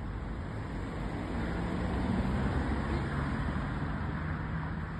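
A small Ford hatchback car driving past close by, its engine and tyre noise swelling to loudest about two seconds in, with a steady low engine hum.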